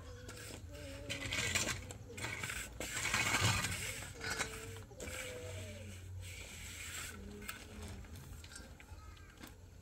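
Concrete blocks and gravel scraping and knocking as blocks are set by hand. There are many sharp clicks and two louder scraping stretches, one about a second in and the loudest about three seconds in.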